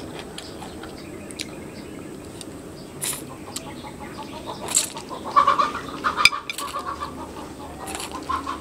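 A person slurping Samyang spicy instant noodles off chopsticks. Soft wet mouth clicks come first, then a run of loud slurps from about three seconds in, loudest in the middle, with more slurps near the end.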